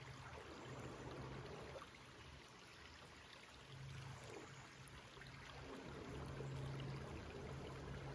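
Flowing water running steadily, like a stream, with a low hum that fades in and out a few times.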